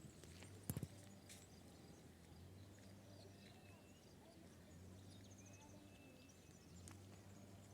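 Near silence outdoors: faint bird chirps and a few sharp clicks, over a faint low hum.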